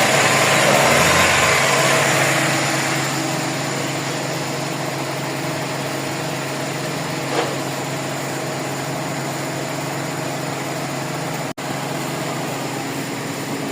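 Toyota 4A-FE 1.6-litre four-cylinder engine idling, a little louder for the first two to three seconds and then settling to a steady run. The car is in for a rough idle and misfire.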